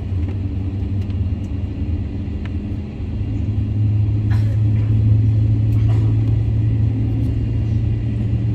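Airliner cabin noise while taxiing: a steady low rumble heard from inside the cabin, growing louder about three seconds in.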